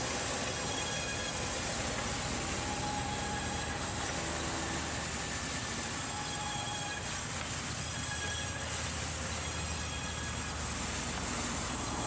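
Large vertical band saws running in a sawmill, a blade cutting through timber: a steady high-pitched hiss over continuous machinery noise, with faint whining tones that come and go.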